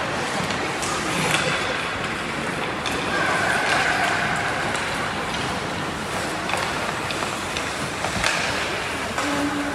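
Ice hockey play in an indoor rink: skates scraping across the ice with a few sharp clacks of sticks and puck, over spectators' voices.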